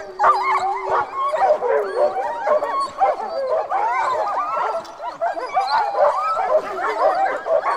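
A pack of sled dogs yelping, whining and howling all at once: many overlapping rising and falling yips with no pause.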